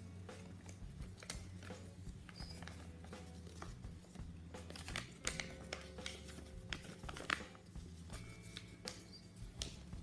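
Sheet of origami paper being folded and creased by hand: soft crinkles and crackles, with the sharpest crinkles about five seconds in and again about seven seconds in, over a steady low hum.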